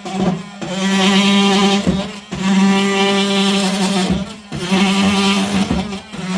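Makita oscillating multi-tool buzzing steadily as it cuts into a plaster cornice stuck on with cornice cement. The buzz dips briefly about every two seconds as the blade is eased off and pushed back in.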